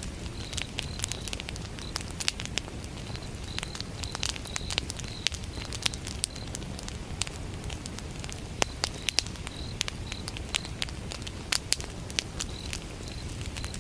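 Firewood burning in a campfire, crackling with frequent irregular sharp pops over a low steady rumble of the flames. A cricket chirps in short pulsed trills on and off.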